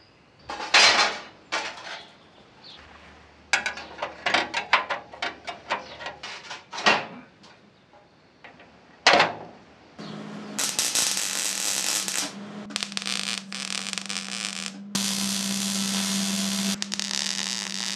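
Sheet-metal panels being handled and set on a steel Land Rover grille, with scattered clicks and knocks. About ten seconds in, an electric welding arc starts crackling and buzzing in several runs that stop and start, as new panels are stitch-welded in short passes.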